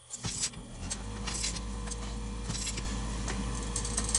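C-frame U-joint press being tightened with a cheater bar against a heavily rusted U-joint bearing cap: a few sharp metal clicks and creaks over a steady low hum.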